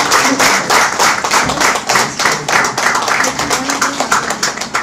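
Audience applauding with hand claps: a fast, irregular patter of many claps that thins out and grows quieter toward the end.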